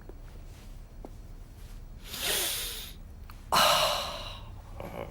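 A cartoon character's breathy vocal noise in two bursts: a rising intake of breath, then about a second later a sudden, louder snort-like burst that trails off.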